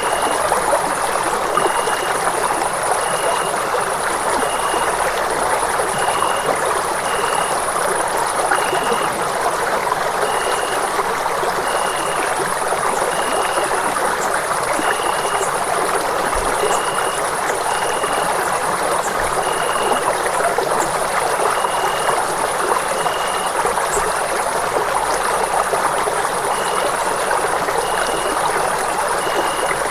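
Running water flowing steadily, an even rushing sound. A faint short high-pitched tone repeats about once a second throughout.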